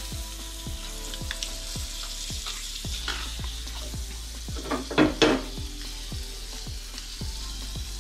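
Butter sizzling as it melts in a hot non-stick frying pan, a steel spatula stirring it, with two loud clatters about five seconds in.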